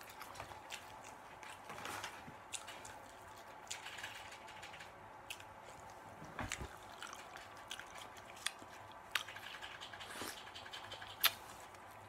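Quiet eating and handling noises: faint chewing with scattered small clicks and taps from handling the food and a foam cup, with a few sharper ticks.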